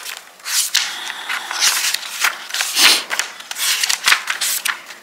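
Paper pages of a large soft-cover Moleskine diary being leafed through by hand: a quick run of about ten swishes and flaps, with a few light ticks as the pages fall.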